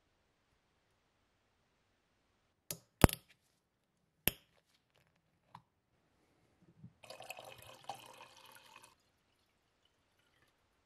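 A few sharp clicks, the loudest about three seconds in, then 12% vinegar poured from a bottle into a glass jar, splashing for about two seconds.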